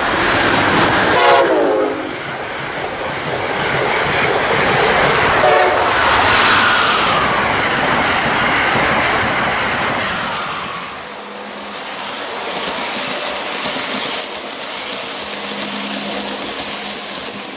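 Full-size trains passing at speed, with rail and wheel noise throughout. A train horn sounds during the first two seconds and briefly again about five seconds in. From about eleven seconds in the noise drops to a quieter rumble with a steady low hum.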